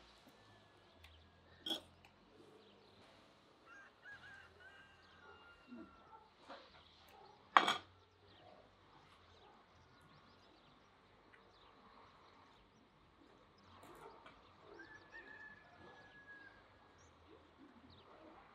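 Two sharp clinks of a knife and fork against a metal platter, the second and louder one about halfway through, over faint birds calling with a few drawn-out whistled notes.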